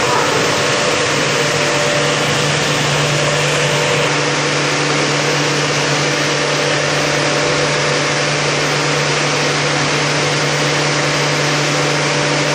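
Swimming-pool filtration pump and ozone equipment running: a steady mechanical hum with a loud hiss over it.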